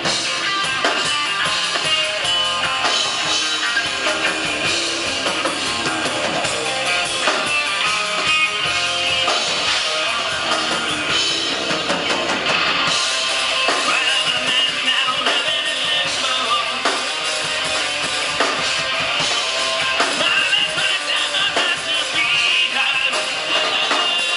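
A rock band playing live: electric guitars and a drum kit, with singing.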